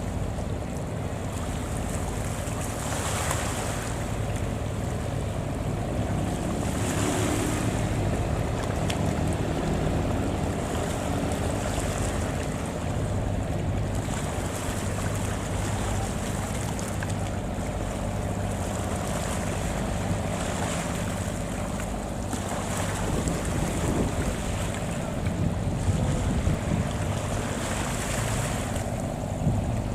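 A fishing boat's engine running steadily, with the wash of the sea and wind on the microphone swelling every few seconds.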